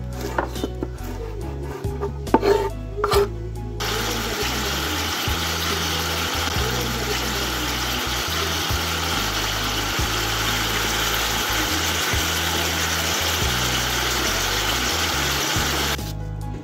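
A knife chopping green pepper on a wooden board, a run of quick taps, then about four seconds in a steady, even sizzle of beef liver frying in a pot, which stops abruptly near the end.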